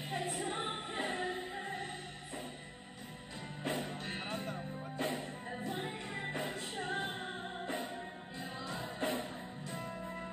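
Live band music with several vocalists singing into microphones over electric guitar, bass guitar and keyboard, with percussion hits recurring every second or so.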